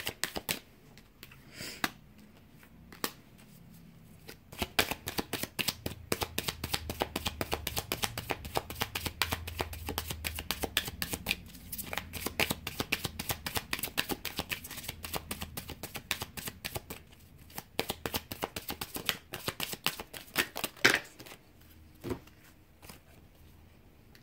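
Romance Angels oracle card deck being shuffled by hand: rapid flicking of card edges in long runs broken by short pauses, with a single louder snap near the end.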